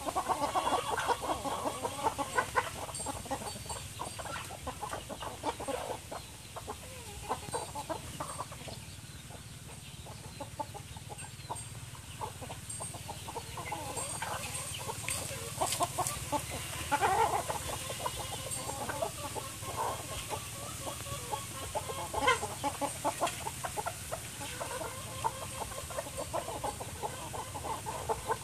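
A flock of chickens clucking, the clucks coming in scattered clusters, with a lull about ten seconds in.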